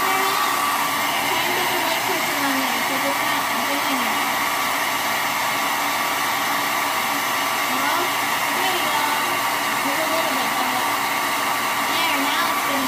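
Handheld hair dryer running steadily, blowing hot air, with a constant whine over the rush of air.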